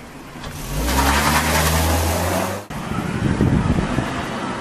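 A car engine revving hard with a loud rushing noise as the car accelerates away. It cuts off abruptly about two and a half seconds in, followed by a lower rumble of the car driving off.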